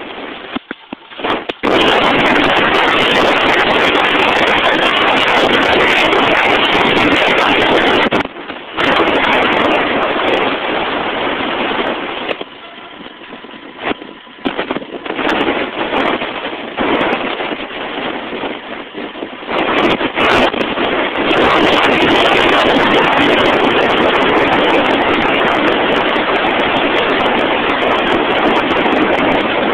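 Drill rig machinery running with a loud, steady mechanical noise. The noise drops out briefly about a quarter of the way in, then runs quieter and uneven for several seconds in the middle before coming back up to full level.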